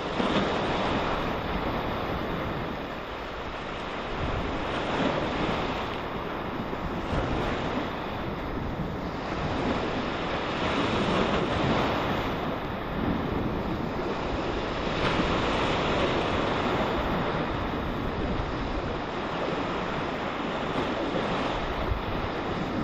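Small sea waves breaking and washing over a rocky shoreline, the surf swelling and ebbing every few seconds.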